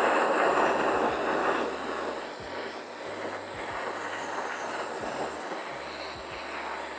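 Handheld kitchen blowtorch flame hissing steadily as it browns the top of a cheese tart, loudest at first and getting quieter about two and a half seconds in.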